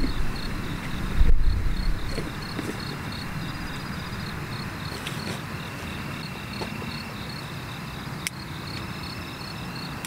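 Crickets chirping in an even, steady rhythm of about four pulses a second. A low rumble of wind gusts on the microphone is loudest over the first two seconds.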